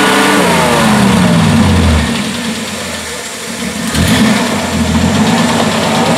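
Jeep's engine revving under load as it climbs a steep muddy rut; the revs fall away over the first two seconds, ease off, then pick up again about four seconds in with a knock.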